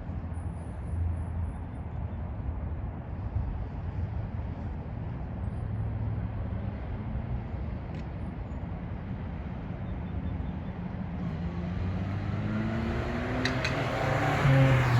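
1999 Subaru Sambar mini truck's small 660 cc four-cylinder engine running steadily, its pitch rising over the last few seconds as it revs up. A couple of light clicks are heard.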